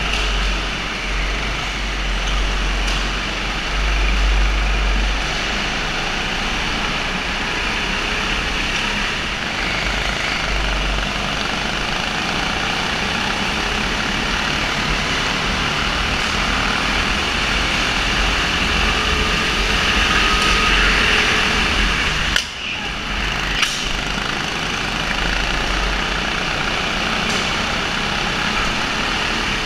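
Go-kart engine running continuously during a race, with a steady mechanical din and deep rumble; the sound drops out sharply for a moment about two-thirds of the way through.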